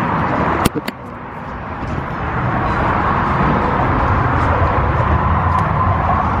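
Steady outdoor traffic noise, with two sharp clicks about a second in.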